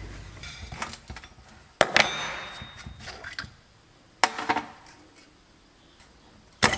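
Metal tools and small metal parts clinking and being set down in a handful of sharp knocks, while a tractor carburetor is taken apart for cleaning.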